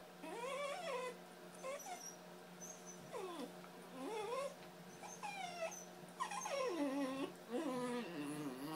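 Scottish terrier puppy "talking": a string of about seven short, whining, grumbling vocalisations that swoop up and down in pitch. A steady low hum runs beneath.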